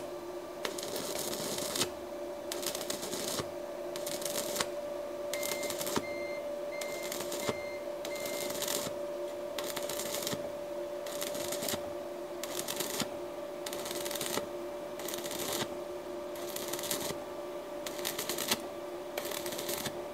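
Stick-welding arc crackling and hissing in short bursts about once a second, as tack welds are struck point by point with the electrode on negative (straight polarity) from a Weldbull Miura 180 mini inverter welder. A steady hum sits underneath.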